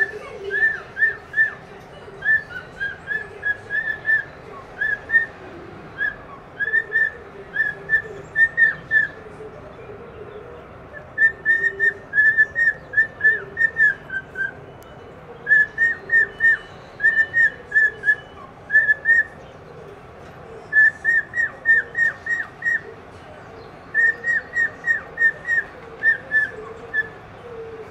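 Cockatiel whistling: quick runs of short high notes, each dropping off at its end, in phrases of several notes with short pauses between.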